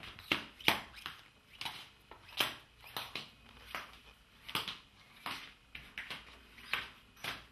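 Footsteps of a toddler shuffling in oversized adult slippers, the loose soles slapping on a hard floor at an uneven walking pace, about one step every half to three-quarters of a second.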